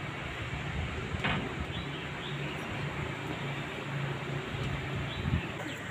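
Outdoor background noise with a steady low hum and a few short bird chirps.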